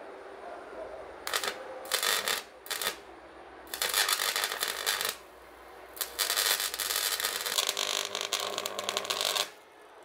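Electric arc crackling and buzzing between a microwave oven transformer's output lead and a scissor blade. It comes in bursts: three short ones, then two longer ones of about one and a half and three and a half seconds.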